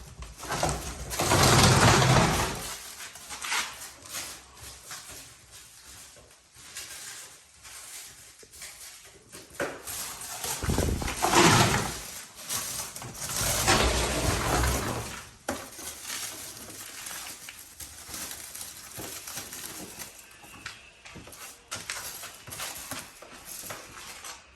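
Packaging being rummaged through by hand: rustling and scraping with short knocks and clicks, louder in three stretches of a second or two each.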